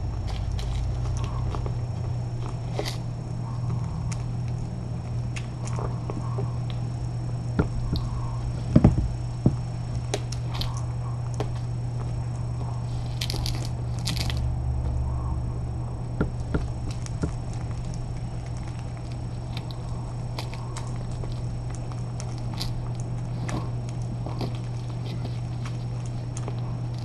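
Kitten crunching dry cat food, with many small clicks and a couple of louder knocks about nine seconds in, over a steady low hum.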